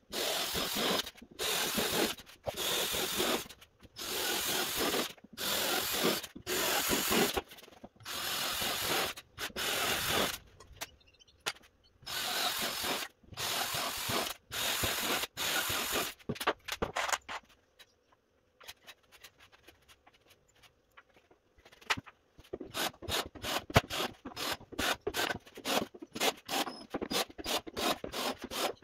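A cordless drill drives screws into MDF in short whirring bursts, about one a second, for the first half. After a quieter pause, the second half is a fast, irregular run of sharp clicks.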